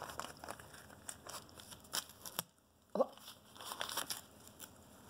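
A small dog tearing and chewing brown paper on carpet: scattered light rips and rustles of paper in short irregular bursts. About three seconds in there is a brief vocal sound, the loudest moment, just after a half-second drop to near silence.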